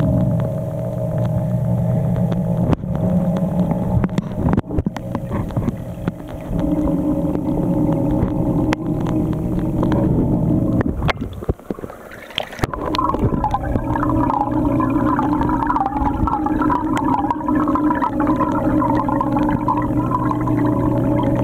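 Steady electric hum of aquarium equipment running, with water gurgling and bubbling in the tank. The gurgling grows stronger from about halfway through, after a brief dip. There are a few handling clicks near the start.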